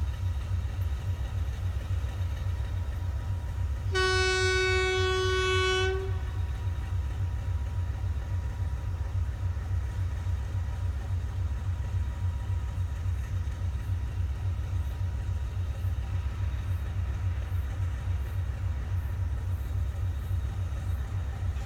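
SS8 electric locomotive's air horn, one steady blast of about two seconds about four seconds in, from the train approaching in the distance. Under it is a steady low rumble.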